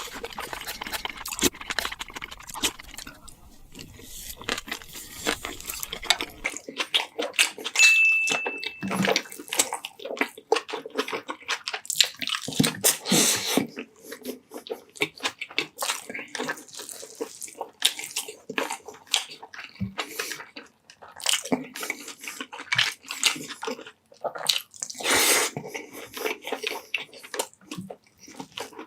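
Close-miked eating sounds: wet chewing and slurping with many irregular small mouth clicks. A short high tone sounds about eight seconds in, and a low background rumble cuts off about six seconds in.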